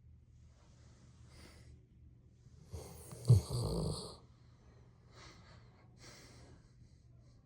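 Snoring in slow breaths: soft ones, with one loud snore about three seconds in that catches sharply at its peak. A faint, steady low hum runs underneath.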